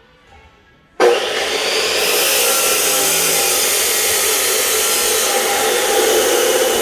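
A power tool starts suddenly about a second in and runs steadily and loudly, a dense whirring noise with faint steady tones in it.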